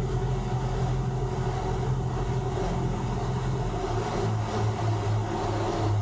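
Twin outboard engines of a towboat running steadily under way while towing a boat, over the rush of wind and wake water. The engine tone drops slightly about four seconds in.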